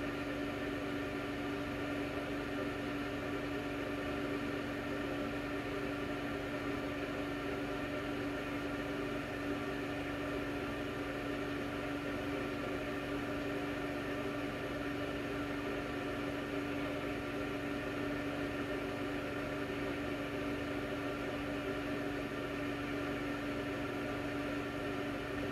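Steady machine hum: an even whirring noise with a fixed low tone over it, unchanging throughout.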